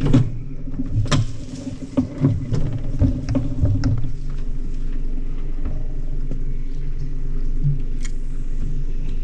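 A small boat's outboard motor running steadily, with several knocks in the first few seconds, as the boat moves to a new spot.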